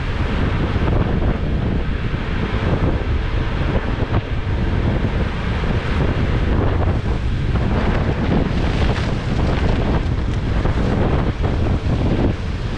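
Wind buffeting the microphone: a steady, rumbling rush with no engine or other pitched sound.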